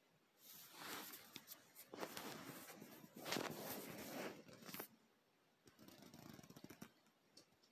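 Rustling and rubbing of handling noise as a phone is picked up and moved about against fabric, with a few small clicks. It comes in one longer stretch of about four seconds, then a fainter, shorter one near the end.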